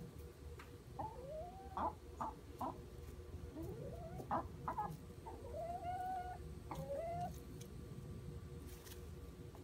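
Hens calling softly while foraging: a string of short clucks mixed with a few rising, drawn-out calls, the longest held for about a second midway.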